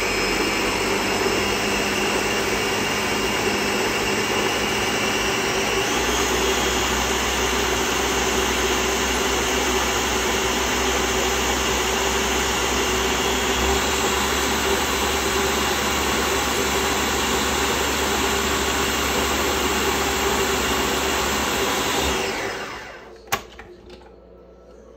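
Ninja countertop blender running steadily, blending soaked puppy kibble and water into a thick mush, with a step up in pitch about six seconds in. Near the end the motor winds down and stops, followed by a few plastic clicks.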